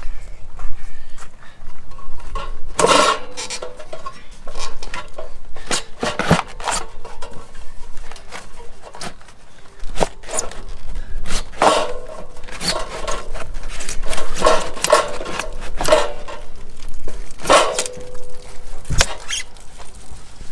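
Irregular metallic clanks and clinks, several with a short ringing tone after them, as hand tools and metal parts knock together while water heater fittings are worked on.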